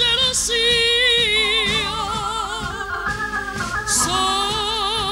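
A woman singing a slow Italian song in Italian with wide vibrato, backed by a live band holding sustained chords.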